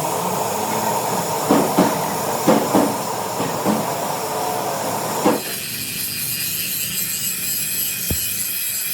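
Steady mechanical workshop din with several sharp metallic knocks, switching abruptly about five seconds in to a steady high hiss.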